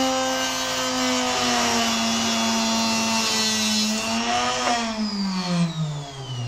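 Small electric cutting machine running with a steady whine while cutting the excess weight section off an arrow point, then switched off, its pitch falling steadily as the motor spins down near the end.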